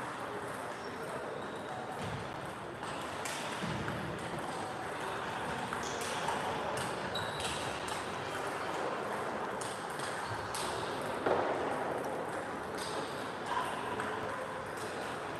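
Table tennis balls clicking off bats and tables at irregular intervals in a large sports hall, over a background of indistinct voices.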